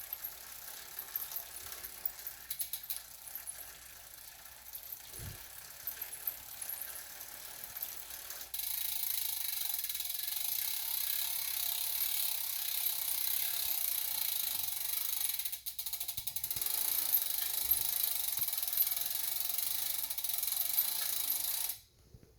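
Cannondale SuperSix Evo road bike's drivetrain running, with a squeak from the SRAM Red 2×10 rear derailleur. The sound is lighter and ticking at first, steps up suddenly about eight seconds in to a louder, steady high-pitched running sound, and cuts off sharply near the end.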